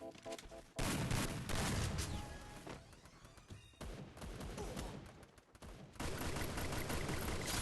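Thunder crackling in rapid bursts of sharp cracks, starting and stopping abruptly several times.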